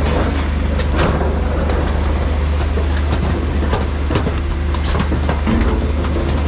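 Rear-loading refuse truck with a Terberg body running its compaction cycle: the hydraulic packer plate sweeps the waste out of the hopper, with scattered knocks and clatters of rubbish. Under it runs the steady low hum of the Dennis Eagle Elite's engine and hydraulics.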